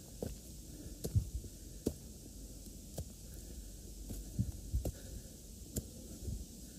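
Footsteps of a walking hiker: low thuds about once a second, some with a sharp click.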